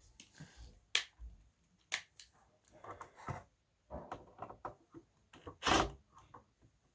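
Plastic radio parts being handled and set down: a series of sharp clicks and knocks, with a louder clatter near the end.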